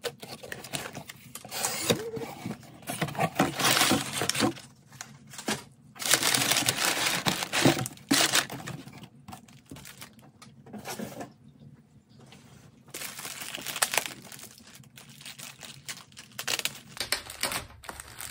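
Hands opening mail: packing tape on a cardboard box being scratched and torn, then a plastic poly mailer crinkling as it is handled and torn open, in uneven bursts with short pauses.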